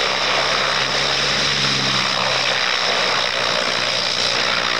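Piper Super Cub's engine running steadily on the ground with its propeller turning, freshly repaired after a crash broke its propeller and landing gear.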